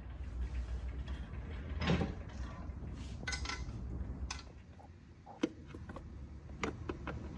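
Workshop clatter of metal parts and tools being handled: a low rumble with scattered sharp metallic clicks and knocks, quieter after about four seconds.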